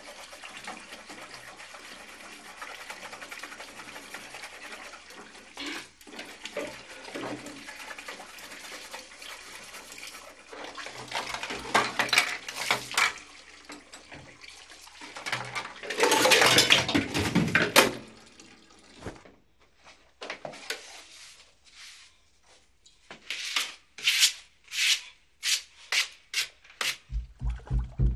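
Kitchen tap running into a sink while a pot and dishes are rinsed and washed, with louder rushes of water twice. Later, a cloth or sponge scrubs the countertop in quick, regular strokes, and music comes in at the very end.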